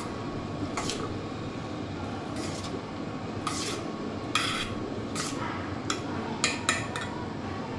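A spoon scraping and clinking against a bowl as a thick mayonnaise-and-cheese sandwich filling is mixed. There are about eight separate scrapes, heard over steady background noise.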